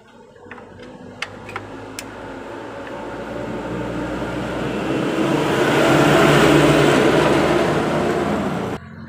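A road vehicle going by, its noise swelling to loud about six to seven seconds in, then cut off suddenly near the end. A few light metal clicks early on from a T-handle 8 mm wrench working the CVT cover bolts.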